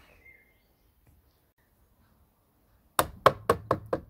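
Mostly near silence, then, about three seconds in, a quick run of taps from a rubber mallet on the plastic housing of a Kärcher K5 pressure washer, about six a second, knocking a housing part loose.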